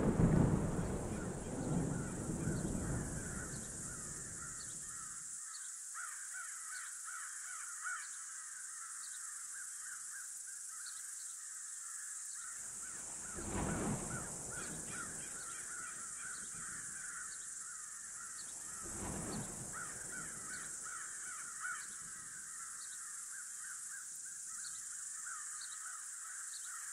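A rumble of thunder dying away over the first few seconds, then a steady night chorus of calling insects. Two more faint rolls of distant thunder come about 13 and 19 seconds in.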